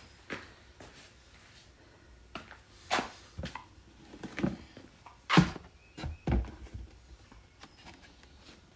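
Handling knocks from a homemade plastic-jug chainsaw prop being moved about: a string of irregular thunks and clicks, the loudest about five and a half seconds in.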